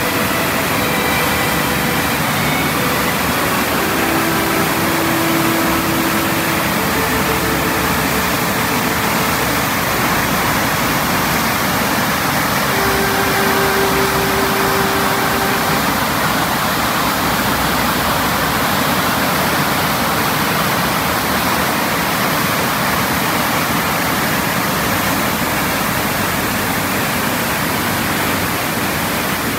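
Chaudière Falls in full flow: a loud, steady rush of water pouring over the ledges and churning in the gorge below.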